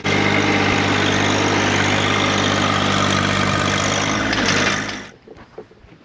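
John Deere 1025R compact tractor's three-cylinder diesel engine running steadily as the tractor drives forward digging a trench with its loader-mounted stump bucket. The sound stops about five seconds in.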